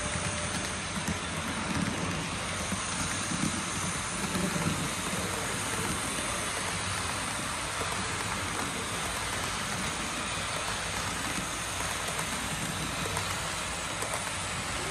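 Model train running on a layout's track: a steady rolling and rattling of wheels on rail.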